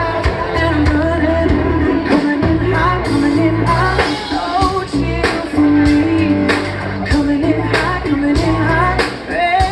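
Live rock band playing with a male lead singer: electric guitar, heavy held bass notes and steady drum hits under the sung melody.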